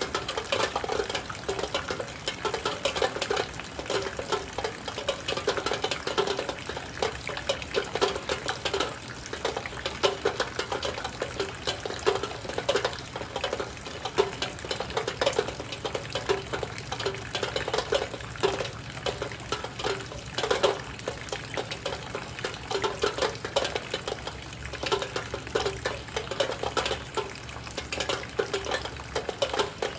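Heavy rain hitting a window, a dense, steady spray of drop impacts with no break.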